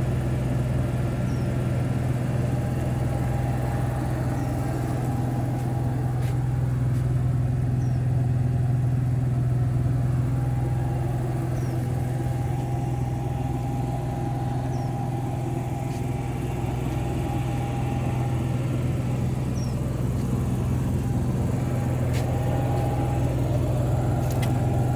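A steady low engine hum that stays even throughout, with a few faint clicks.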